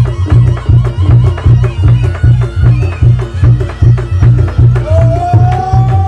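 Reog Ponorogo gamelan music: a steady, loud drum-and-gong pulse at about three beats a second, with a long held melodic note coming in near the end.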